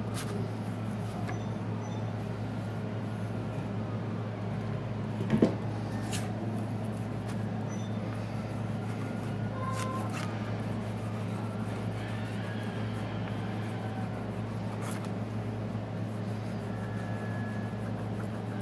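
A microfiber rag wet with acetone scrubbing glue off an iPad 2's frame: faint rubbing and squeaks over a steady low hum, with a few light taps, the sharpest about five seconds in.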